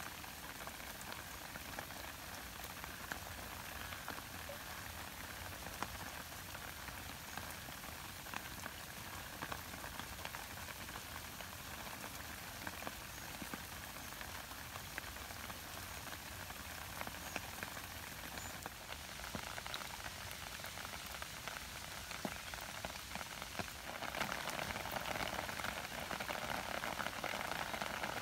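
Steady light rain falling on leaves and ground, a fine haze of many small drop ticks. It gets louder about 24 seconds in.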